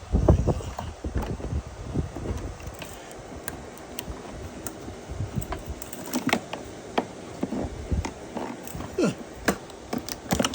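Irregular light clicks and knocks of hand tools and small parts being handled while a small generator is taken apart; the engine is not running.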